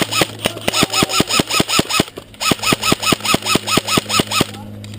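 Airsoft gun firing full-auto, two rapid bursts of about seven shots a second, the first stopping about two seconds in and the second ending near the end.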